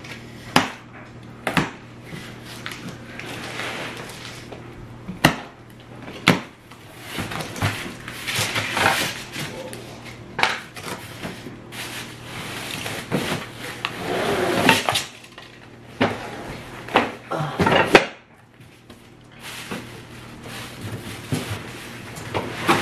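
Large cardboard box being cut open with a utility knife and handled: several sharp knocks and taps against the box, with long stretches of cardboard scraping, slicing and ripping in between.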